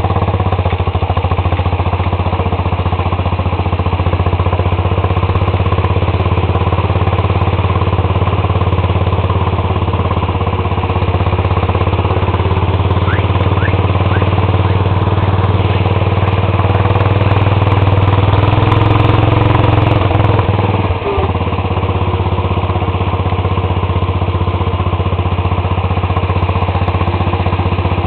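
Riding lawn tractor's engine running steadily while driven at speed, a little louder for a few seconds past the middle, with a brief dip in the engine note about twenty seconds in.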